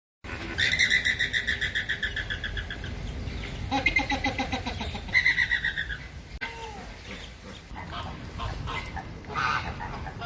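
Birds calling: bursts of fast, rapidly repeated chattering notes, then softer, scattered calls after about six seconds.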